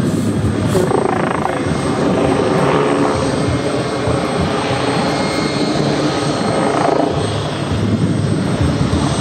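MBB Bo 105 helicopter flying aerobatic manoeuvres overhead: a steady, fast rotor chop from its four-blade hingeless main rotor, mixed with the sound of its twin turboshaft engines.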